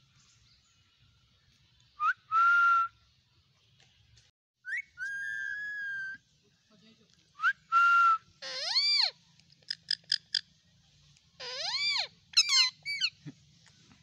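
Indian ringneck parakeets calling: a string of whistled calls, some held for a second or so, then shrill arching squawks with runs of quick short chirps in the second half.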